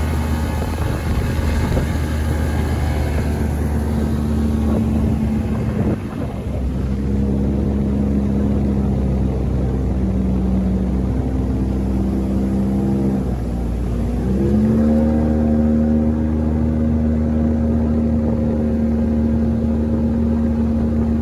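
Outboard motor pushing a small boat along at a steady pace. Just past halfway its pitch drops briefly as the throttle eases, then climbs back and holds steady.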